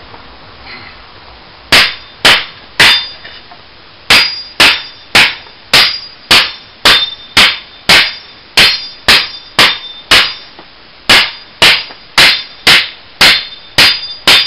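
Cold Steel Latin machete chopping into wood across the grain: about twenty sharp strikes, a few spaced out at first and then a steady run of about two a second. Some strikes leave a brief high ring from the blade.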